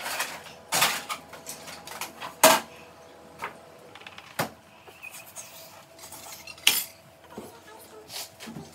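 Kitchen clatter: a handful of sharp clinks and knocks of dishes and utensils being handled, the loudest about two and a half seconds in and again near seven seconds.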